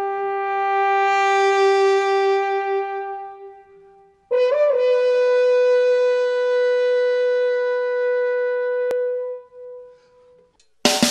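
Two long blown notes from a horn-like wind instrument. The first, lower note swells and then fades. The second, a little higher, wavers briefly at its start and is then held for about five seconds. Music cuts in right at the end.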